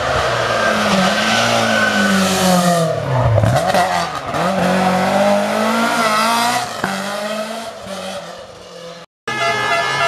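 A rally car engine revving hard at full throttle, its pitch climbing and dropping with gear changes and lifts, then fading as it drives away. Near the end there is a sudden cut to another rally car's engine.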